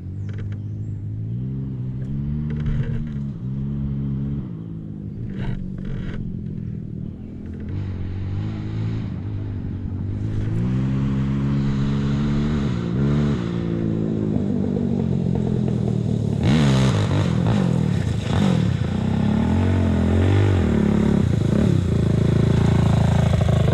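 KTM 300 TPI two-stroke dirt bike engine revving up and down as the throttle opens and closes, growing louder in the second half. A few sharp knocks and clatter sound over it.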